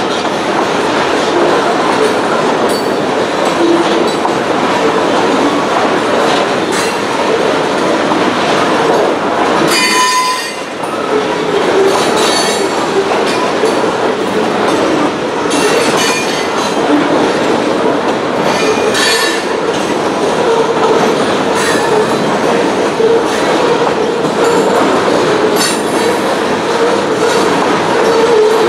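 Loaded covered hopper cars of a freight train rolling past: a steady rumble with the clatter of wheels over rail joints, and a brief high wheel squeal about ten seconds in.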